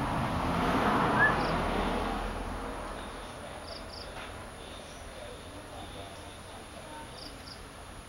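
A passing vehicle's noise swells, peaks about a second in and fades away over the next couple of seconds. It leaves quieter outdoor ambience with a faint steady high tone and brief high-pitched chirps, several of them in quick pairs.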